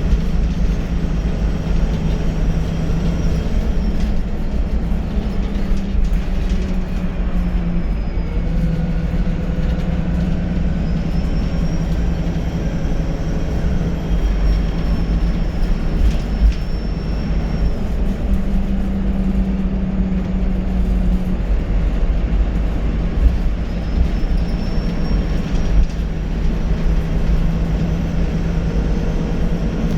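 VDL SB200 bus engine running on the move: a steady low drone whose pitch steps up and down with engine speed. A faint high turbocharger whistle rises and falls over it, clearest in the middle and again later on.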